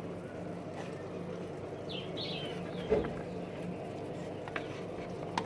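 A few faint, short bird chirps, each falling in pitch, over a steady low hum, with a soft knock about three seconds in and a couple of light clicks near the end.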